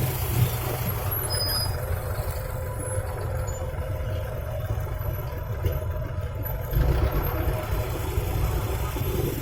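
Heavy vehicle engines running with a steady low rumble that gets louder about seven seconds in.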